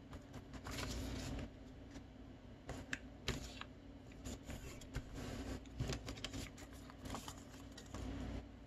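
Square of colored origami paper being handled, folded and creased by hand: crisp paper rustling with scattered light taps and crinkles.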